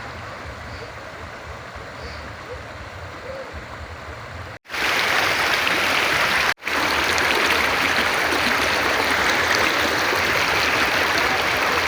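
River water flowing and rushing, a steady hiss that gets much louder after two brief cuts about four and a half seconds in.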